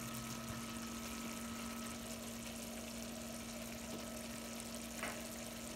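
Crab roast in coconut-milk gravy simmering and reducing in a wok on a gas burner: a steady low hiss with a steady low hum under it, and a faint click about five seconds in.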